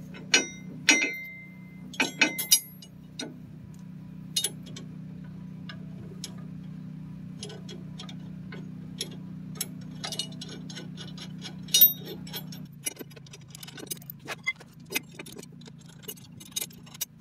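Hand ratchet clicking as the nuts on new leaf-spring U-bolts are run down, mixed with sharp metallic clinks of the hardware, loudest near the start and about twelve seconds in. A steady low hum runs underneath.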